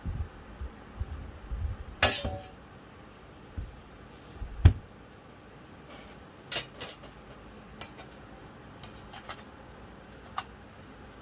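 Scattered clicks, taps and knocks of small hard parts and tools being handled on an opened laptop. The sharpest clicks come about 2 s in and about 6.5 s in, and the loudest sound is a dull thump about 4.5 s in, followed by a few fainter ticks.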